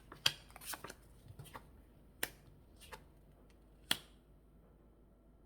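Tarot cards being shuffled and drawn by hand: a quick flurry of sharp card clicks and rustles in the first second, then three single sharp clicks spaced about a second apart.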